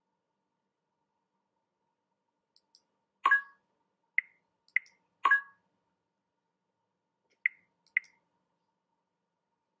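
Short, sharp electronic interface blips and clicks, software sound effects, about seven spread over several seconds; two louder two-tone blips come about three and five seconds in.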